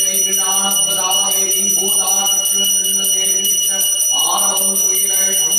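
A puja handbell rung without pause, a steady high ringing with a fast shimmer, over a man's voice chanting.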